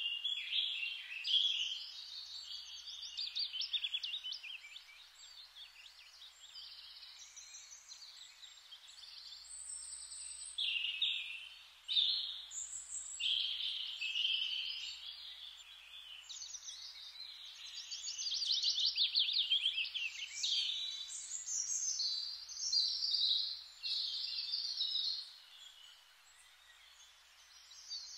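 Birds chirping and singing, many overlapping calls and quick trills that come and go in waves, over a faint hiss.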